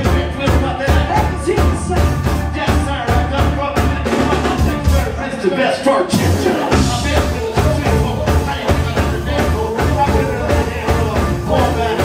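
Live band playing rock music with a steady drum beat; the beat breaks off briefly about six seconds in, then picks up again.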